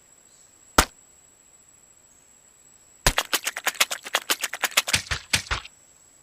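One sharp tap, then a fast run of about twenty sharp taps, roughly eight a second, for about two and a half seconds before they stop abruptly.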